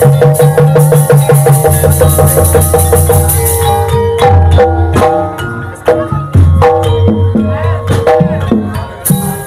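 Gamelan music accompanying an ebeg dance: repeated metallophone notes over drums and low sustained tones. A rapid high shimmer over it stops about four seconds in and returns near the end.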